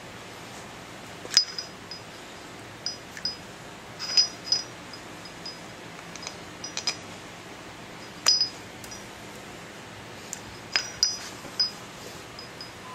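About ten sharp metallic clinks at irregular intervals, each with a brief high ring, as steel half-shaft and CV-joint parts are handled and knocked together during assembly.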